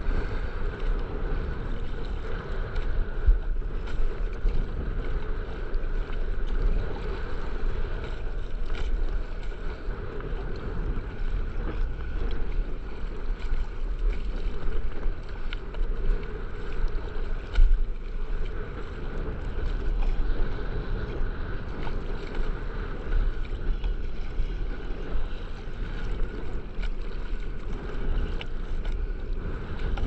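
Steady wind rumble on the microphone of a camera riding low on the sea, with choppy water sloshing around the board. There are a couple of louder bumps, about three seconds in and again just past halfway.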